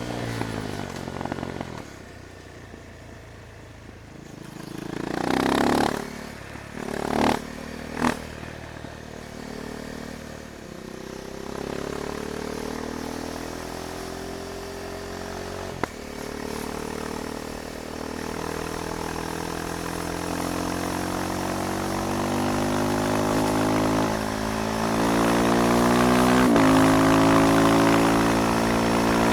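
KTM Duke 390's single-cylinder engine riding along: quiet on a closed throttle at first, then a few short throttle blips about five to eight seconds in. It then pulls steadily with its pitch climbing, briefly dropping at gear changes about halfway and near the end, and is loudest near the end.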